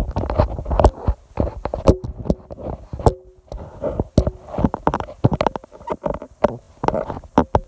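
Phone microphone being handled and rubbed against clothing: a dense, irregular run of knocks, bumps and rustles with low rumble, and a few brief squeaks.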